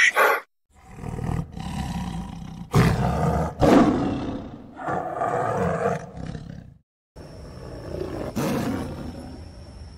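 Big cat roaring in several loud calls, loudest about three to four seconds in. The sound breaks off about seven seconds in, and a quieter stretch with a faint, thin high tone follows.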